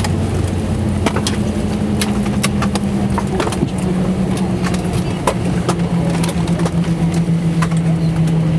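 Airbus A320 cabin noise after landing: a steady drone that slowly falls in pitch, with many scattered sharp clicks and knocks.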